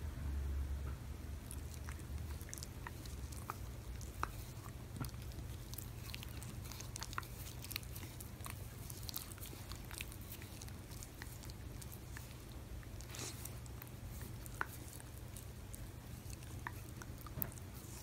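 Shiba Inu licking, nibbling and sucking on a person's fingers: soft wet mouth clicks and smacks at irregular intervals.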